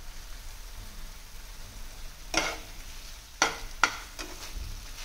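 Thick chicken masala frying with a low sizzle in a nonstick pan while a slotted steel spatula stirs it. Past the halfway mark the spatula scrapes and knocks against the pan several times in quick, sharp strokes.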